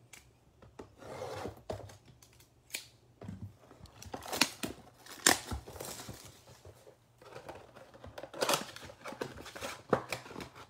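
Cardboard NBA Hoops blaster box being torn open by hand: irregular scraping and tearing of card stock, with a few sharp snaps.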